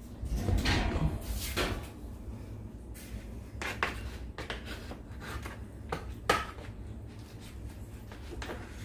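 Kitchen clatter of a hot pan, spoon and dishes being handled: scattered knocks and scrapes, busiest in the first two seconds, with one sharp knock about six seconds in.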